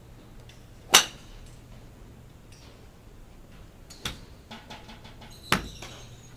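Three sharp cracks of golf clubs striking balls: a loud one about a second in, a lighter one about four seconds in, and another loud one near the end, when the driver in the nearest bay is swung through.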